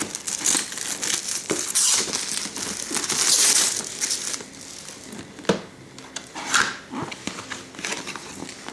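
Plastic wrap crinkling and crackling as it is pulled off a cardboard box, loudest in the first half, then quieter rustling with a couple of sharp clicks.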